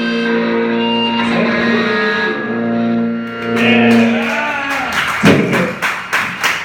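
A live rock band ending a song: a held, ringing electric guitar chord for about three seconds, then a swell and a fast run of sharp hits over the last second and a half.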